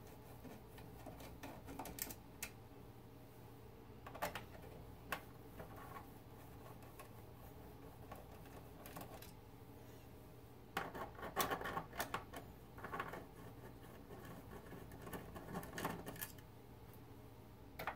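Quarter-inch nut driver working screws out of a radio's metal chassis: faint, scattered metal clicks and scrapes, bunching into quicker runs a little past the middle and again near the end.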